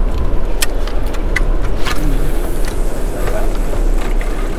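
Small boat on open water: a steady low rumble of wind and water around the hull, with scattered sharp clicks and knocks.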